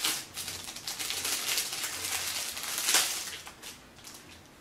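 Plastic packaging crinkling and rustling as a pair of socks is pulled out of it, with a louder crackle about three seconds in before it dies down near the end.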